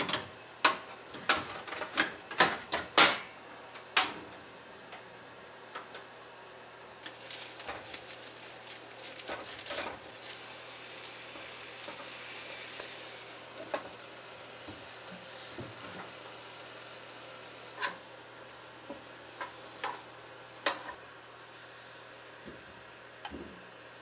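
Little smokies (cocktail sausages) frying in a small pan. A few clanks of pan and utensil in the first seconds give way, about seven seconds in, to a steady sizzle that is loudest in the middle and fades near the end, with a couple of clicks.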